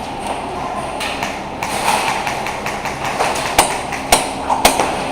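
Rustling movement, then three sharp snaps from an airsoft gun about half a second apart, like single shots fired in a row.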